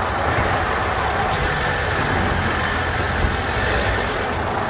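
Honda Civic's four-cylinder engine idling steadily, freshly filled with oil and an RVS G4 treatment after some 4,000 miles run without oil, which the owner thinks has left some of the bearings giving out.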